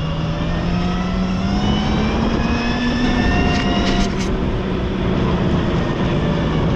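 Motorcycle engine running under way, its note rising gently over the first few seconds and then holding steady, over a constant rush of noise. A few short clicks come about three and a half to four seconds in.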